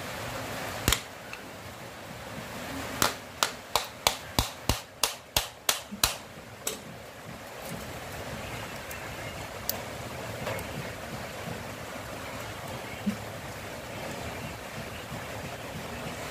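Hand tool tapping at the carbon-brush holder of a motorcycle starter motor: one sharp tap, then a run of about nine sharp taps at roughly three a second, and a few single taps later, over a steady background hiss.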